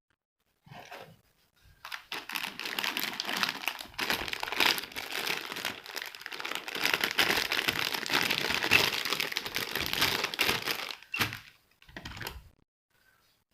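Packaging being crinkled and crumpled by hand during unboxing, a dense crackling that starts about two seconds in and stops about two seconds before the end, followed by two brief rustles.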